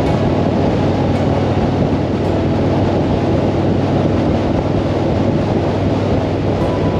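Harley-Davidson V-twin motorcycle engine running steadily at cruising speed on the open road, under heavy wind rush on the microphone.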